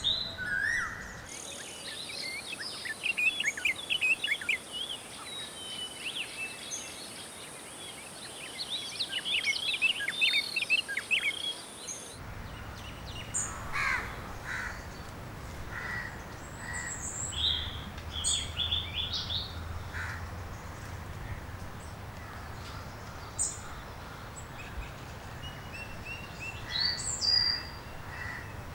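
Several birds chirping and calling over a steady background hiss, with quick bursts of high chirps in the first half and sparser, scattered calls later. The background changes suddenly about a second in and again about twelve seconds in, with a low steady rumble underneath the later part.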